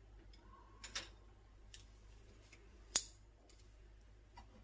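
Kitchen handling sounds over a faint steady hum: a couple of light clicks about a second in, then one sharp clack about three seconds in, like a bottle or utensil set down on a hard surface.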